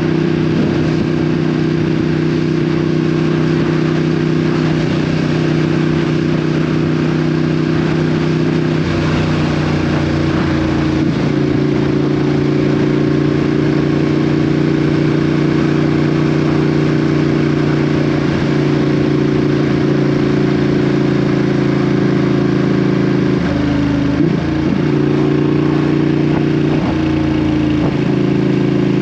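Ducati Panigale V2's L-twin engine through an Akrapovic exhaust, running steadily under way, with a few brief dips and steps in engine speed.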